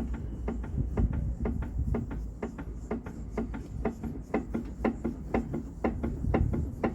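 Worn front stabilizer-bar link (bieleta) on a VW car knocking about twice a second as the body is rocked by hand. The clunk comes from play in the link's worn ball joint.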